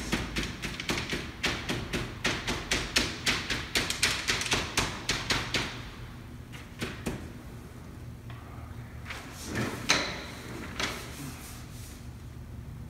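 Felt-tip marker dabbed and stroked quickly on paper taped against a wall: a rapid run of short scratchy taps, several a second, that stops about six seconds in. A few single strokes follow, the loudest about ten seconds in.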